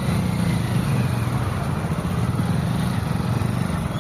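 Motor vehicle engine running steadily in road traffic, a rough, even drone with no let-up.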